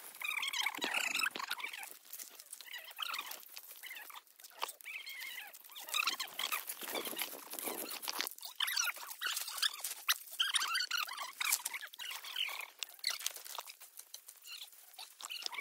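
Irregular rustling and crackling of dry leaves and twigs, with small clicks and snaps coming in dense, uneven clusters.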